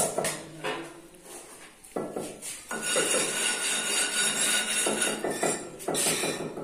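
Clinking and tapping of ceramic wall tiles and hand tools during tiling.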